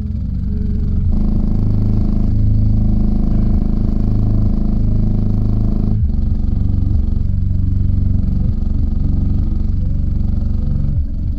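A Memphis LVS 15 15-inch subwoofer playing loud, deep bass notes that shift in pitch, with a brief break about six seconds in.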